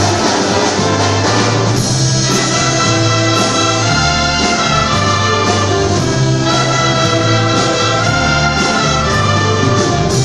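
Church brass band playing a hymn tune: trumpets and trombones sounding held chords in harmony over a bass line that steps from note to note.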